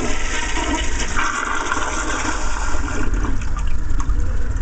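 Older Crane Whirlton toilet flushing: water rushing and swirling down the bowl, with a brighter hiss from about one to three seconds in. A good flush, though a little short.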